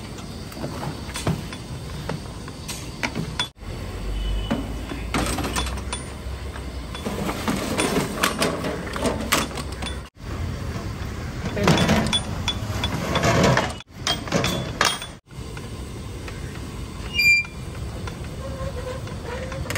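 Large aluminium cooking pots clanking and scraping as they are handled onto a metal pushcart, with scattered knocks and general street noise. The loudest clatter comes about two-thirds of the way in, and a short high-pitched tone sounds near the end.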